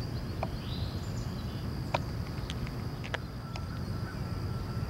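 Rural outdoor ambience: a steady high insect drone over a low rumble, with a few short sharp ticks scattered through it.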